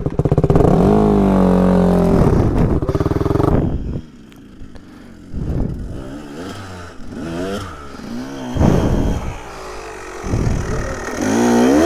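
Enduro dirt bike engine revving hard as the bike is pushed up a steep trail climb, its pitch rising and falling. About three and a half seconds in it drops away, leaving quieter, intermittent revving from the bikes, which grows louder again near the end.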